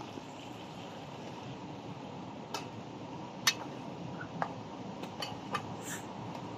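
Metal spoon clicking and scraping against an aluminium pot of bean curry as it is stirred: a run of sharp clicks starting a couple of seconds in, one of them much louder, over a steady low background hiss.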